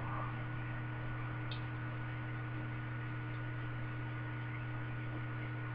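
Steady low electrical hum with faint room noise, with no other sound standing out.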